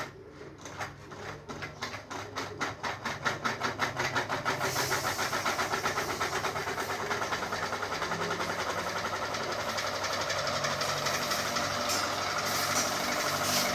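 Ceiling fan spinning up with a repeating knock that gets faster over the first few seconds, then blurs into a steady, even rattling whir.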